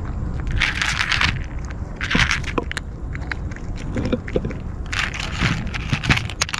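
Kitten crunching dry cat food right at the microphone, in three bouts of crackly chewing with quieter pauses between them.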